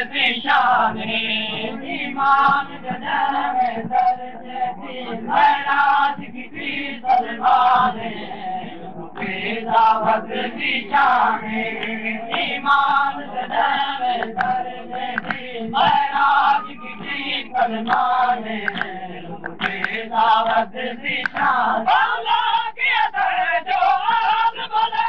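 Crowd of men chanting a Shia noha together in a lamenting chorus, with the sharp slaps of matam, hands striking chests, throughout.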